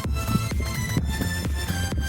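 Electronic dance music with a steady beat and synth melody.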